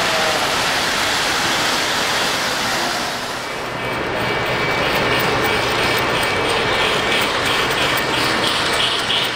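Electric toy trains running on a model railway layout: a steady whirring rush of motors and wheels on track. About three and a half seconds in the sound changes, and a steady high whine, a low hum and a regular light clicking join in.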